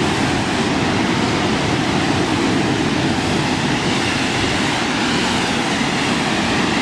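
Waterfall rushing steadily into a pool below, a loud, even roar of falling water.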